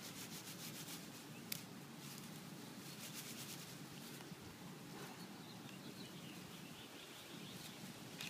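Faint rustling and rubbing of long grass as puppies move through it, with stretches of rapid fine ticking and a sharp click about a second and a half in.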